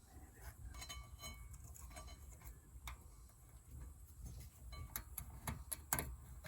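Scattered light metallic clicks and clinks of hand tools and brake parts being handled, a few ringing briefly, with several sharper clicks near the end.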